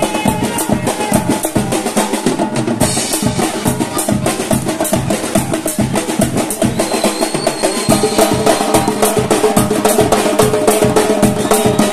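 Live band music with heavy drumming: a drum kit and a large double-headed bass drum beating a dense rhythm, with reed wind instruments playing the melody over it.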